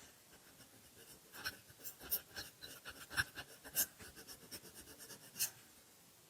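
A run of light, irregular taps and clicks lasting about five seconds, a few of them sharper than the rest.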